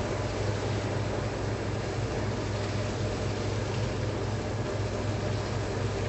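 Steady running noise of an industrial ultrasonic pipe inspection machine (Olympus RTIS) making its check calibration pass over a calibration pipe: a constant low hum under an even hiss, with no clear knocks or changes.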